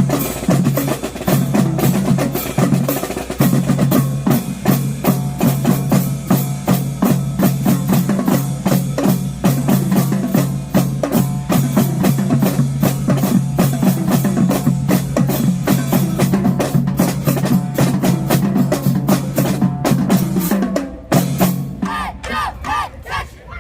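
Middle-school marching drumline playing a fast, loud cadence of snare rolls, rimshots and bass-drum hits, ending about 21 seconds in with a few last hits.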